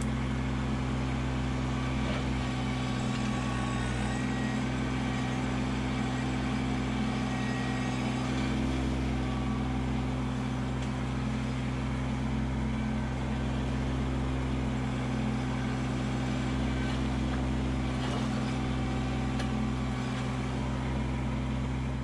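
Kubota LX2610 compact tractor's three-cylinder diesel engine running steadily while the front-loader root rake grapple works a pile of brush and soil.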